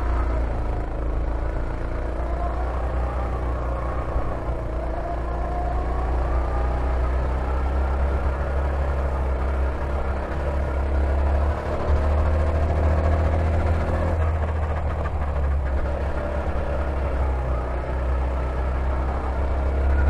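Go-kart engine heard from the driver's seat, running under throttle over a heavy low rumble, its note rising and falling as the throttle is worked on and off.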